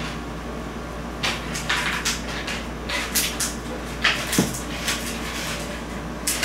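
Stainless steel mixing bowl being handled and set on a tabletop: a few short metallic clicks and scrapes, over a steady low hum.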